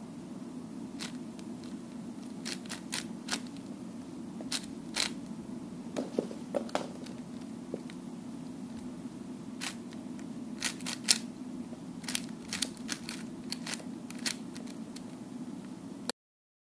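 Plastic 4x4 speed cube turned by hand: irregular sharp clicks and clacks as the layers are turned and snap into place, over a steady low hum. The sound cuts off abruptly near the end.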